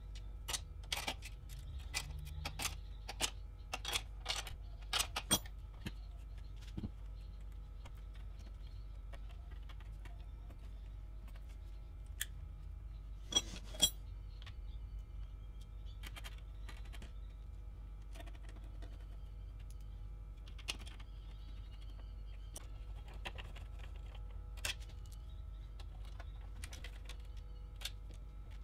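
Light clicks and clinks of a Tektronix TDS2024C oscilloscope's sheet-metal chassis and circuit boards being handled and fitted back together. The clicks come thick in the first few seconds, with a pair about halfway through and only a few after, over a faint steady hum.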